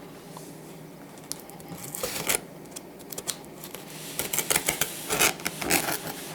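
Cardboard shipping box being opened and its packing handled: irregular rubbing, scraping and short tearing rustles that come thicker and louder from about two seconds in.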